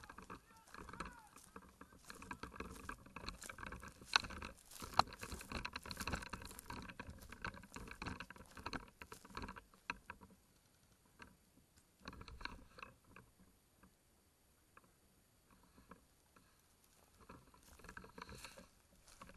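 Irregular rustling and crackling of an airsoft player moving through field vegetation, with two sharp clicks about four and five seconds in. It goes quieter for several seconds in the second half, then the rustling picks up again near the end.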